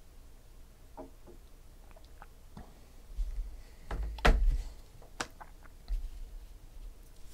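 Trading cards being handled on a tabletop: scattered light clicks and taps, then a sharper knock about four seconds in and another a second later, with a few dull low thuds.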